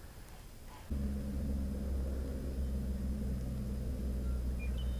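A machine's steady low hum, like a motor running, that starts suddenly about a second in and holds at one pitch.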